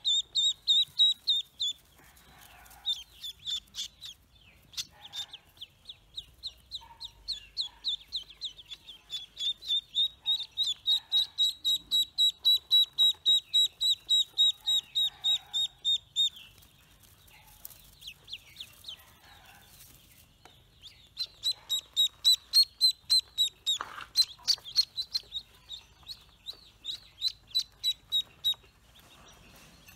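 Newly hatched ducklings peeping: long runs of short, high-pitched peeps, several a second. The peeping stops for a few seconds around the middle, then starts again.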